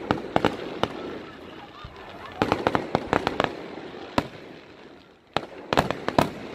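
Aerial fireworks shells bursting: groups of sharp bangs and pops near the start, in the middle and near the end, with a single bang in between and a brief lull just before the last group.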